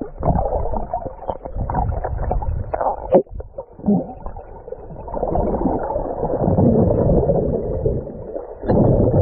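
Muffled sloshing and gurgling of seawater heard underwater through an action camera, rising and falling as the swimmer moves, with a sharp knock about three seconds in.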